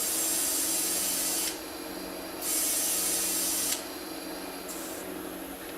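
Compressed air hissing into a freshly plugged lawn tractor tire in two bursts, the second starting about a second after the first ends, over a steady low hum.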